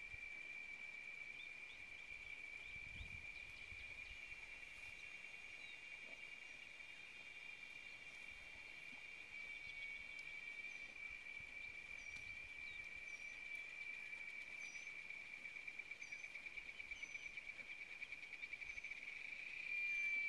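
Faint, steady, high-pitched insect chorus droning on one pitch, pulsing slightly near the end. Short high bird chirps repeat about once a second in the second half.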